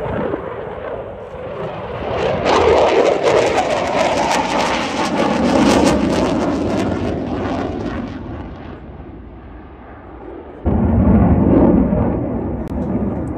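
Saab JAS 39 Gripen fighter jet passing in a display, its engine noise swelling into a loud, hissing blast that fades away over several seconds. About eleven seconds in, a sudden loud low rumble starts.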